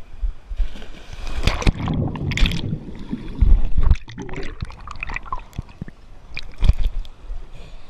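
Splashing as a swimmer jumps into a swimming pool, about one and a half seconds in, then muffled underwater gurgling and bubbling with the camera submerged.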